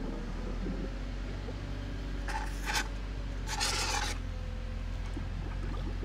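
A fire extinguisher gives two short rough hissing spurts about a second apart, the second a little longer, with a steady low rumble underneath.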